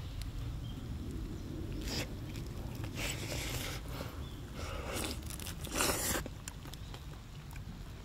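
A person biting into and chewing campfire-cooked bacon, heard as several short bursts of chewing noise, the loudest about six seconds in.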